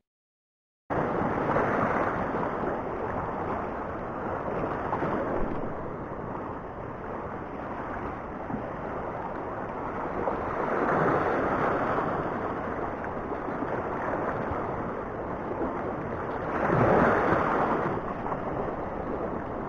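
Sea waves washing over a shallow coral reef, with wind on the microphone. It starts about a second in and swells louder twice, about halfway through and again near the end, as surges come across the reef.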